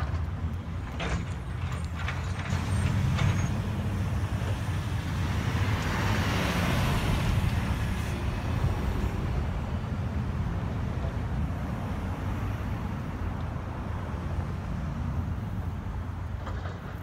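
Steady low rumble of road traffic, with a vehicle passing: its tyre and road noise swells and fades about six to eight seconds in.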